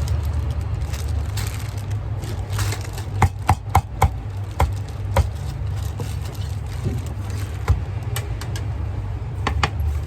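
Sharp knocks and clinks of kitchen utensils at a food stall, a quick run of them about three to five seconds in and a few more near the end, over a steady low rumble like passing traffic.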